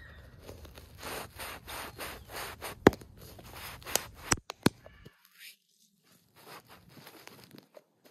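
Clear plastic drink cups handled and pressed down into garden soil over seedlings: rustling and scraping, with a few sharp plastic clicks about three to five seconds in, the loudest near three seconds.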